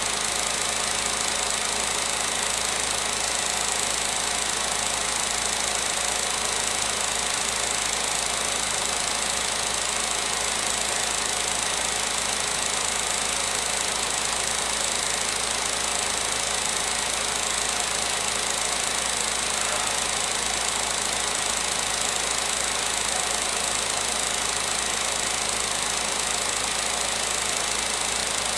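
16mm film projector running: a steady mechanical whirr and light clatter with hiss.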